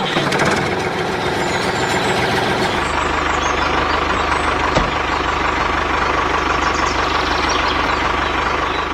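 Diesel tractor engine running steadily, with a fast chugging beat underneath.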